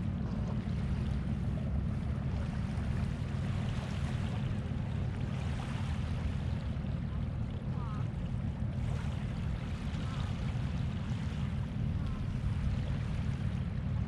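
Steady low wind rumble on the microphone over the soft wash of small waves lapping a pebbly shore. A few faint short bird chirps come through in the second half.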